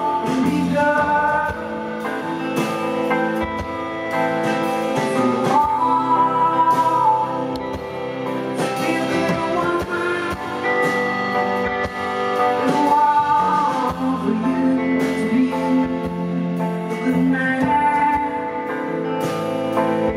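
Live band performing: a woman singing a slow, drawn-out melody over drums, guitar and keyboard.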